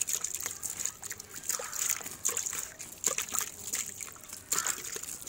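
Water flicked by hand from a bucket onto loose soil: a run of quick, irregular splatters.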